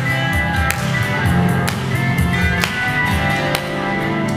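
Hollow-body electric guitar played through PA speakers: rhythmic strummed chords with a pulsing low end and sharp percussive accents about once a second, an instrumental passage with no singing.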